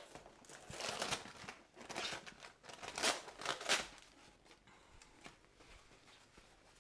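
Thin plastic sealing film being peeled off a plastic food tray, crinkling and crackling in a run of bursts for the first few seconds, loudest about three seconds in, then only faint handling ticks.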